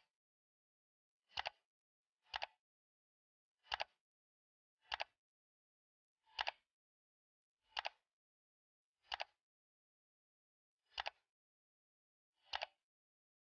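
A series of short, sharp double clicks, about ten of them, one every second or so with silence between.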